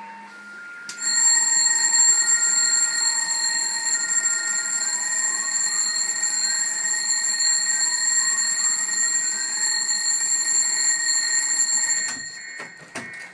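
Alarm clock ringing loudly and without a break for about eleven seconds, then cutting off suddenly, followed by a few knocks.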